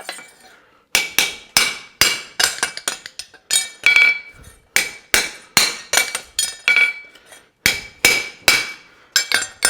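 Farrier's hammer driving a pritchel through the stamped nail holes of a hot steel horseshoe on the anvil: a run of quick, ringing metal blows, about two to three a second, with a short pause a little past halfway.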